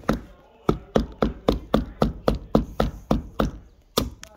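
A pointed metal tool stabbing into a block of ice in a plastic cup, chipping at it in a fast run of sharp knocks, about four a second. After a short pause comes one more strike near the end.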